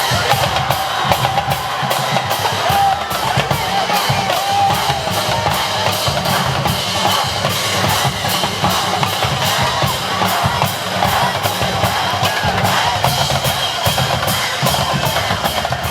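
Drums playing a steady, fast beat, with a strong bass drum and snare.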